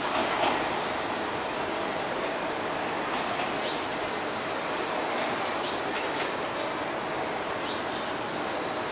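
Tobu Ryomo limited express train pulling away from the station platform and receding, a steady even noise. Three short high falling chirps come about two seconds apart from about three seconds in.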